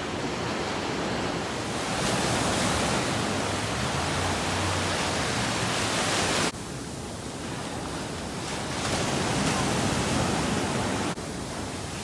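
Ocean surf washing onto the beach, mixed with wind on the microphone: a steady rushing noise that swells a little and drops abruptly twice.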